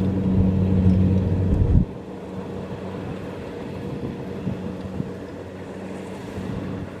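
Kubota DC-70 Plus combine harvester's diesel engine running steadily under harvesting load, loud and close at first; about two seconds in the level drops abruptly to a quieter, more distant steady hum of the same machine.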